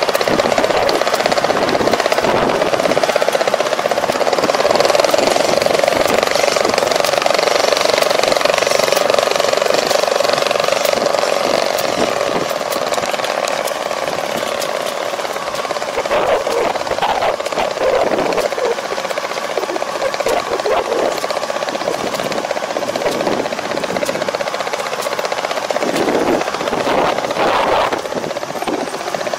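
Four-row combine harvester running while cutting rice: a loud, steady mechanical drone with a busy rattle from the engine and the cutting and threshing machinery.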